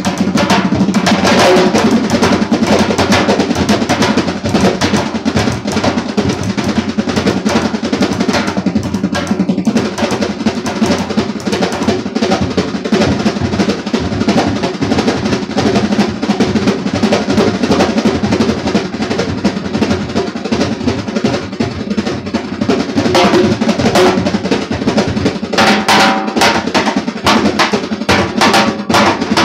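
A goblet drum and a large rope-tensioned double-headed drum played together by hand in a fast, continuous rhythm meant as the sound of a train. The strokes thin out briefly about nine seconds in and grow busier near the end.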